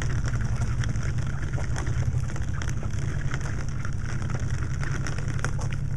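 The small wheels of a rolling suitcase trundling over rough concrete pavement: a steady gritty rumble with many scattered small clicks.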